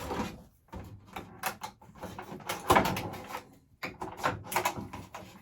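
Plastic and cardboard toy packaging being handled and pulled apart by hand: irregular crinkles, scrapes and knocks, the loudest a little under three seconds in.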